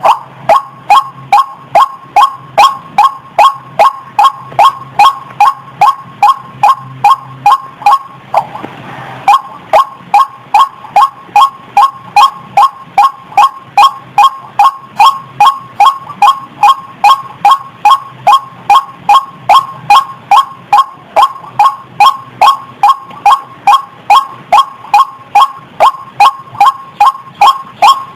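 White-breasted waterhen, the female's call: a rapid, steady run of short, harsh "wak" notes, about two and a half a second, with a pause of about a second about eight seconds in.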